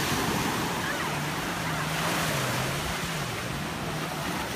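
Small waves washing onto a sandy beach, with wind on the microphone. A low wavering hum comes in about a second in and lasts around two seconds.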